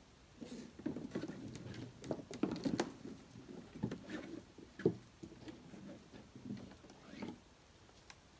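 Dry sticks and branches being gathered up out of a canoe: a run of irregular wooden clatters and knocks, loudest about two and a half seconds in and again near five seconds.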